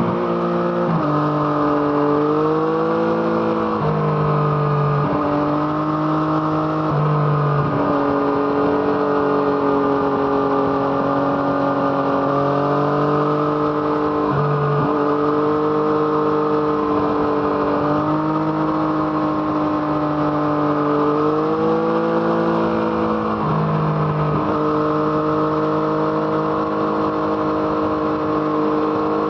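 A 2017 Yamaha MT-09's 847 cc inline three-cylinder engine, breathing through an Arrow Thunder exhaust, under way on a ride. The engine note keeps rising and easing off, and several times it drops sharply as the throttle is closed or a gear is changed.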